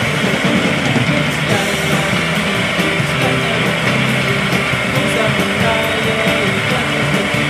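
Background music, with a woodturning lathe's motor running and a chisel cutting the spinning wood underneath it.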